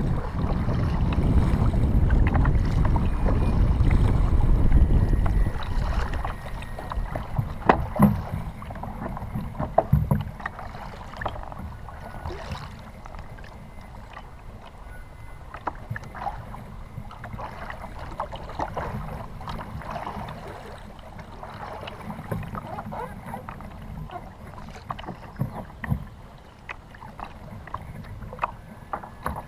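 Water washing around a plastic Feelfree Lure 11.5 fishing kayak's hull with wind on the microphone, loudest for about the first six seconds. After that it is quieter, with scattered clicks and knocks of the paddle and gear against the hull.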